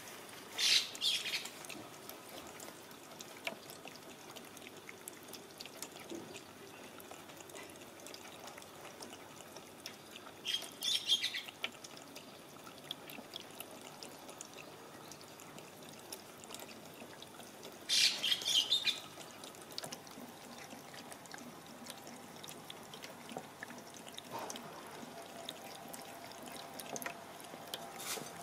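Thin stream of water trickling from an outdoor tap while a cat laps at it with small wet licking clicks. Birds chirp briefly three times: about a second in, about eleven seconds in, and about eighteen seconds in.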